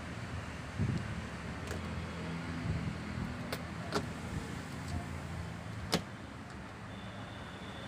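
Car power window motor running with a low steady hum, with several sharp clicks along the way.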